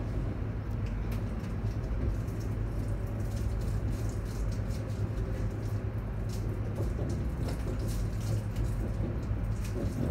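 Steady running noise heard inside the carriage of an ES2G Lastochka electric multiple unit moving along the track: an even low rumble with light, scattered clicks.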